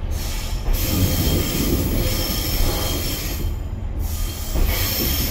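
Pacer railbus wheels squealing against the rails, a high screech over the low rumble of the moving train. The screech breaks off for about a second midway and starts again near the end.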